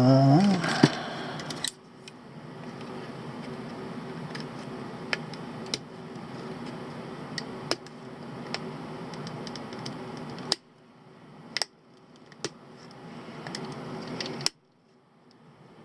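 Scattered light clicks and taps of a hand tool picking at the hard black epoxy potting over a chip on a multimeter's circuit board, over a steady low hum. A brief murmured voice is heard at the very start.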